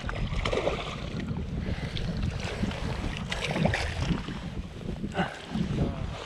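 Wind rumbling on the microphone out on an open boat, with scattered light knocks and clicks.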